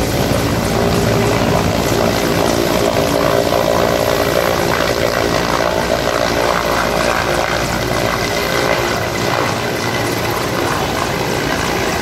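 Mi-17-type military helicopter hovering close overhead, its turbine engines and main rotor running steadily with a rhythmic chop of the blades, while it winches a person up from the river.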